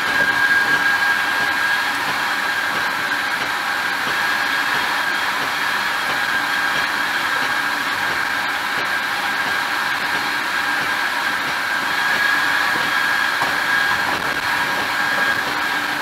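Steady rushing noise of a Metra commuter train running at speed, heard from inside the car, with a steady high whine running through it.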